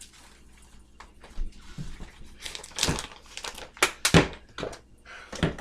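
Kitchen handling sounds: crinkling and rustling with a few sharp knocks and clatters, the loudest about four seconds in.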